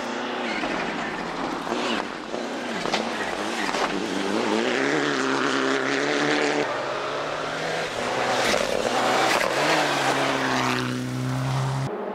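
Rally car on a loose gravel stage, its engine revving hard and falling back again and again through gear changes as it comes closer and louder. The sound cuts off suddenly near the end.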